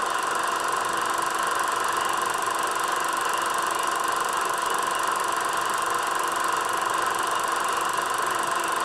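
Eiki 16mm sound projector running: a steady mechanical whir of the film transport, with a steady high-pitched tone over it.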